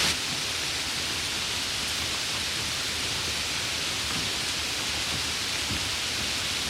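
Heavy rain falling steadily: an even, unbroken hiss of many drops.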